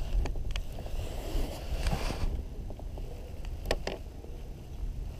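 Wind buffeting the microphone over small waves slapping against a kayak's hull, with two light clicks about three and a half seconds in.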